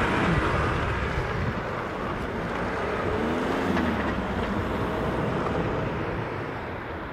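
Heavy trucks driving past, engine and tyre noise that slowly fades as they move away, with a brief rise and fall in engine pitch about halfway through.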